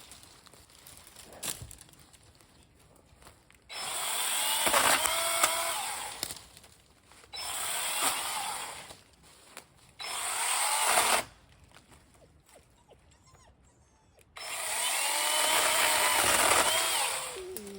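Kobalt 24V brushless 6-inch battery pruning saw cutting into a tree in four bursts, the motor's whine dipping in pitch and recovering as the chain bites into the wood.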